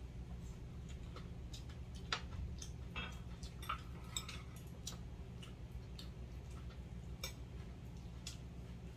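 Light, irregular clicks and clinks of chopsticks and metal spoons against bowls and plates during a meal, with the loudest knocks about two and four seconds in, over a steady low hum.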